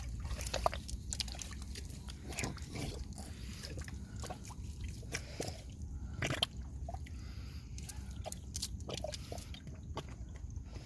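Water sloshing and dripping, with many small irregular splashes and clicks over a steady low rumble.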